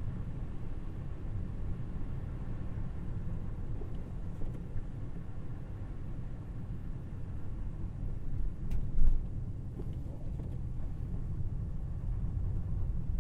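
Low, steady road and tyre rumble of an electric car driving, with no engine note, and a single brief thump about nine seconds in.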